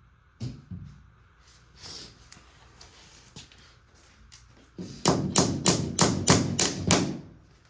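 A hammer striking repeatedly: a couple of light taps near the start, then a fast run of about nine hard blows, roughly four a second, in the second half.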